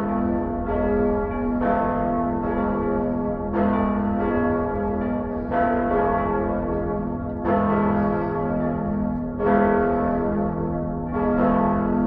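Church bells ringing: several bells struck one after another, roughly every half second to a second, each ringing on beneath the next.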